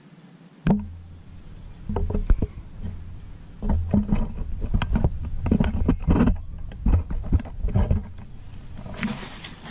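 Irregular rustling and crunching of dry leaf litter and twigs with scattered knocks, as of someone moving across the forest floor. A low rumble sets in suddenly about a second in.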